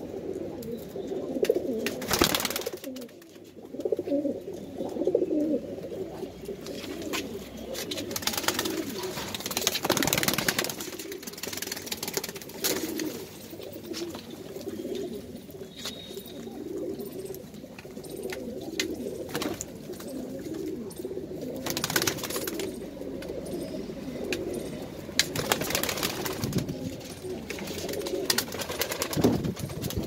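A flock of Madrasi pigeons cooing continuously in a low, overlapping chorus, with a few brief louder rustles among the birds.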